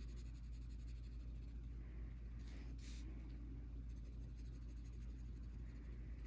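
Graphite pencil scratching softly on a small paper tile as it lays in shading strokes, with a couple of stronger strokes near the middle, over a faint steady low hum.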